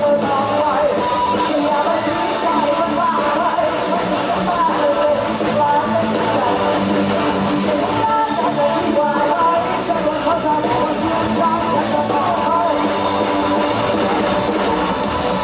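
Live band playing an amplified pop-rock song, with a drum kit, electric guitar and a male singer.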